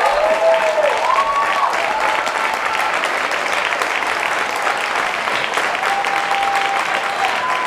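Audience applauding, with a few drawn-out cheers from voices over the clapping.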